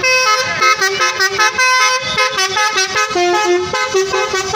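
Tour bus's telolet basuri horn, a melodic multi-tone horn, playing a quick tune of stepped notes one after another.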